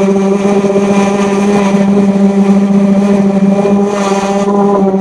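Electric orbital sander running steadily, its pad working over the wet painted skin of a car door: an even, unbroken motor hum at one pitch.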